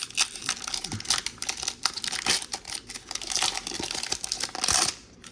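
Foil wrapper of a Pokémon trading-card booster pack crinkling and tearing as it is opened by hand, with a denser rustle near the end before it stops.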